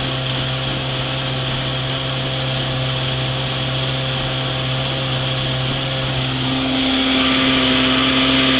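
Vintage 1960 Johnson 40 hp two-stroke outboard, freshly rebuilt, running steadily at speed and pushing the boat, with water and wind hiss. It gets a little louder and its note shifts higher about two-thirds of the way through.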